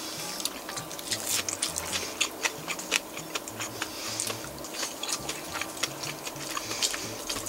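Close-up chewing of crispy fried red gurnard, the batter crunching in many irregular sharp clicks, over a faint steady hum.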